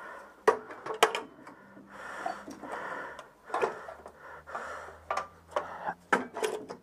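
Gloved hands working among the parts and wiring of a Citroën 2CV's engine bay: a dozen or so irregular sharp clicks and knocks of small parts being handled, with rubbing and rustling in between.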